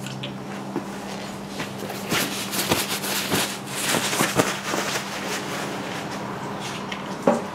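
Small clicks and scraping from hands working with small metal and plastic parts and tools, busiest in the middle, over a steady low hum.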